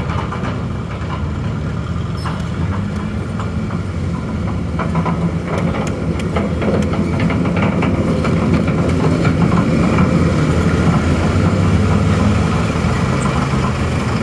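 Road traffic heard from the road itself: a large engine runs steadily close by, with scattered rattles and clicks, slowly growing louder.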